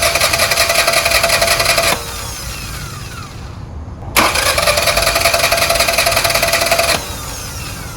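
1999 Toyota Camry's four-cylinder engine being cranked by the starter without catching, in two tries: the first stops about two seconds in, and the second starts about four seconds in and stops near seven. The owner puts the no-start down to no fuel (failed fuel pump or clogged fuel filter) or a slipped timing belt.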